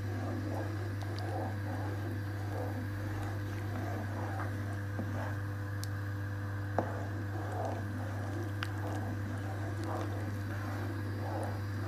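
Chicken soup boiling in a pot, with beaten egg just added, while a spatula stirs it: soft, irregular bubbling and swishing over a steady low hum, with one light tap about seven seconds in.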